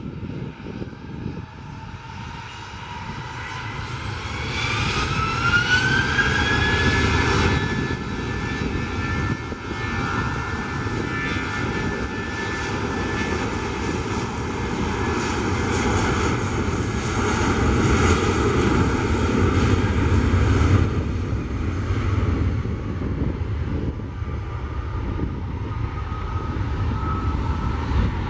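Twin jet engines of an Airbus A320-family airliner rising in pitch as they spool up, about four seconds in, then running with a steady loud roar and whine as the jet rolls along the runway.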